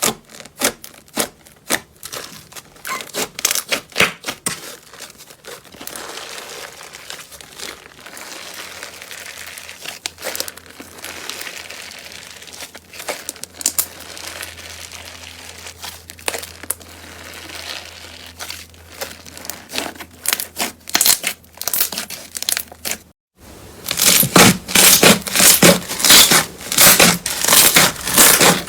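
Slime being squeezed and pressed by hand, with rapid crackling and popping clicks. After a brief cut about 23 seconds in, a louder, denser run of crackling follows.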